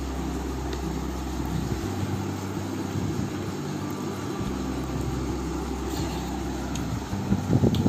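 A steady low mechanical hum. Its deepest note drops out for a couple of seconds about two seconds in.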